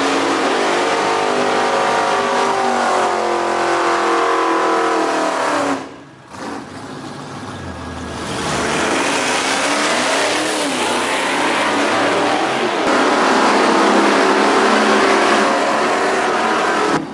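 Drag-race cars running hard, engine pitch rising as they accelerate. The sound drops away suddenly about six seconds in, then engine noise builds again and is loudest near the end.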